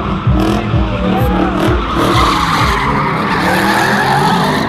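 Drift car sliding sideways with its engine revving and tyres screeching, the screech loudest in the second half.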